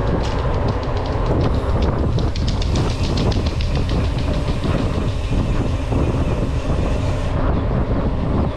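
Trek Marlin 7 mountain bike riding at speed on cracked concrete road: steady rush of wind over the microphone and tyre rumble, with a quick run of even clicks through the middle that stops near the end.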